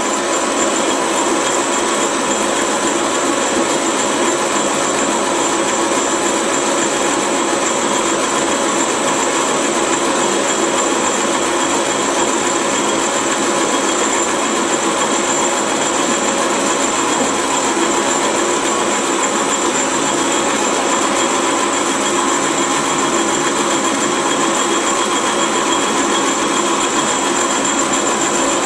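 Holbrook C8 metal lathe running steadily in reverse, its spindle and gearing giving an even mechanical hum with several constant whining tones.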